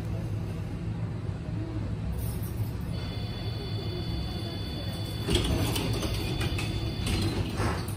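ČKD KT8D5R.N2P tram standing at a stop with a steady low hum. About three seconds in, a steady high door warning tone sounds for a couple of seconds, then the passenger doors close with mechanical clattering and a knock near the end as they shut.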